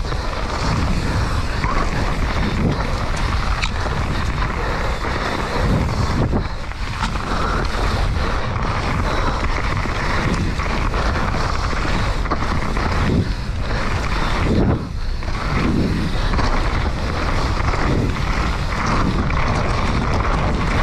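Mountain bike riding fast down a dirt trail: a steady rush of wind on the microphone mixed with the tyres rolling over dirt, easing briefly a few times.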